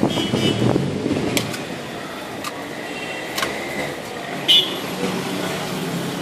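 Busy street ambience: steady traffic noise with indistinct voices in the first second, a few sharp clicks, and a short high beep about four and a half seconds in.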